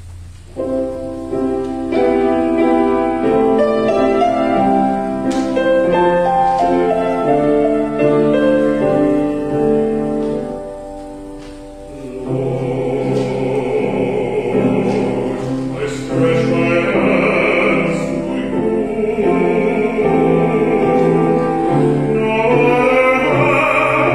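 Pipe organ playing a slow introduction of held chords. About twelve seconds in, a voice singing with vibrato comes in over the organ accompaniment.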